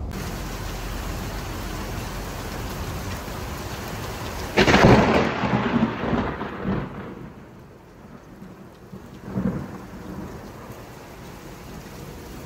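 Heavy rain pouring steadily during a thunderstorm. Nearly five seconds in comes a sudden loud clap of thunder that rumbles away over two or three seconds, and a smaller roll of thunder follows a few seconds later.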